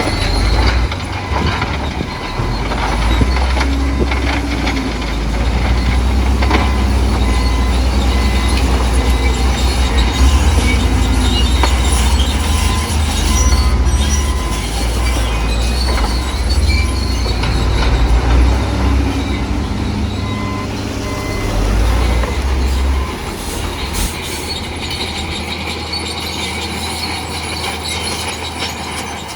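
Crawler bulldozer working: the diesel engine runs heavily under load while the steel tracks clank and squeal. The engine note drops off near the end.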